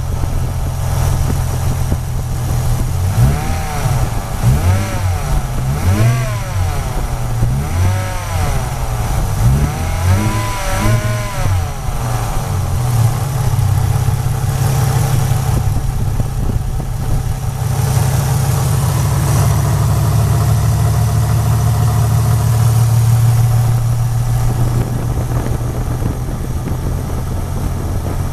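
A car engine running with the A/C on, making a noise that the owner suspects means the A/C is going bad, even though it still blows cold air. Over a steady drone, a whine swoops up and down repeatedly during roughly the first twelve seconds, then settles into a steadier drone.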